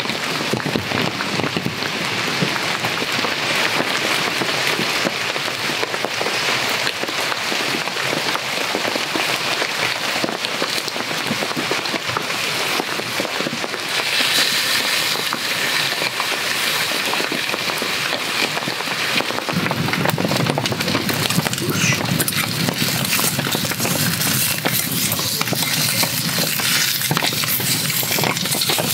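Steady rain falling on the forest floor and tarp. About two-thirds of the way in, hamburger patties sizzling in a small frying pan over a crackling wood fire join the rain.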